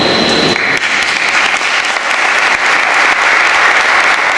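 Audience applauding, swelling about half a second in and then holding steady.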